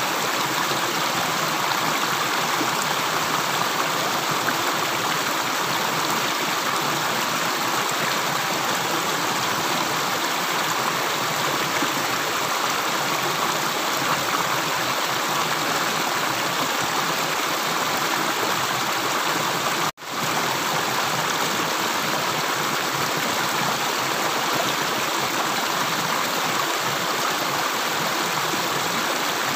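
Water flowing steadily like a small stream, an even rushing hiss with no separate drips. The sound drops out suddenly for an instant about twenty seconds in, then resumes.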